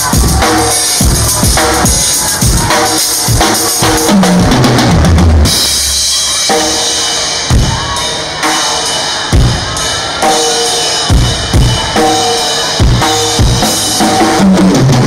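Loud music driven by a drum kit: kick drum, snare and cymbals playing a steady beat under sustained pitched notes. The kick and low end drop out briefly about a third of the way in, then the beat comes back.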